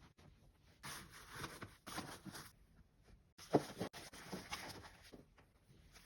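Clothes hangers sliding and clicking along a closet rod amid the rustle of clothing, in a few short bursts, the sharpest knock about three and a half seconds in.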